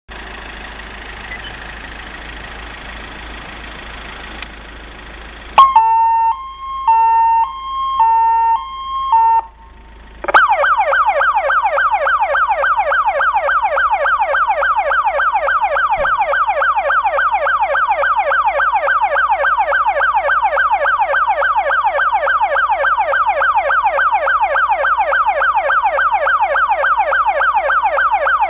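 Electronic siren of an Iveco Daily fire-brigade water rescue vehicle run through its modes. After a few seconds of steady background noise and a click, a loud two-tone hi-lo signal alternates between two pitches for about four seconds. After a brief pause comes a fast yelp sweeping up and down several times a second.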